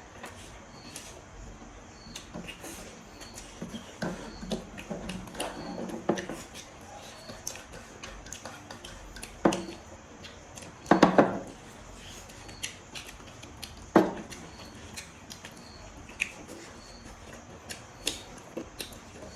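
Eating at a plate of pork on the bone: chewing, with small clicks and clinks of utensils and bones against the dish, and louder clatters about nine, eleven and fourteen seconds in. A faint high chirp repeats about once a second behind it.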